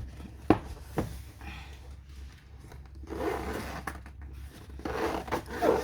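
A diamond painting storage box being handled: two sharp knocks early, then two stretches of rubbing and scraping as it is turned over.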